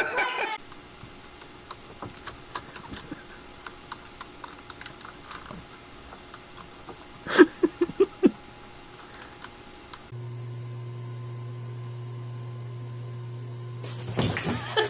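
Scattered light clicks and taps over a faint hum, with a quick run of about five louder knocks a little past the middle; then a steady low hum.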